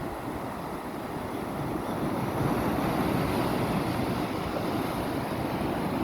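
Sea waves washing over rocks and rock pools: a steady rush of surf that swells a little about two seconds in, with wind buffeting the microphone.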